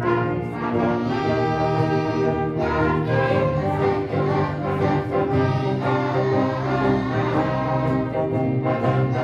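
Choir and instrumental ensemble performing, with brass instruments prominent in sustained chords.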